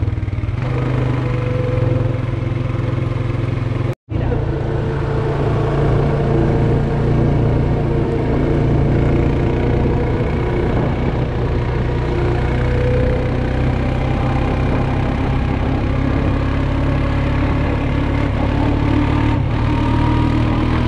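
ATV (quad bike) engine running steadily at cruising speed, with wind noise on the microphone. The sound cuts out for an instant about four seconds in.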